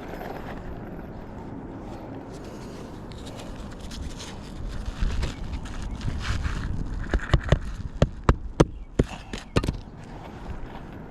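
Scraping and handling noise on an asphalt shingle roof, then a quick run of about nine sharp clicks and taps near the end.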